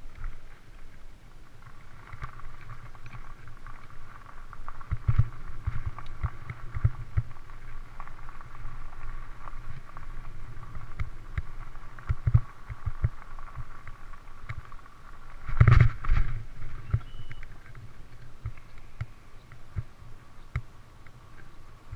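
Knobby mountain-bike tyres rolling over gravel, with a steady rushing noise and irregular low thumps and knocks as the bike jolts over bumps. One heavy jolt comes about two-thirds of the way through.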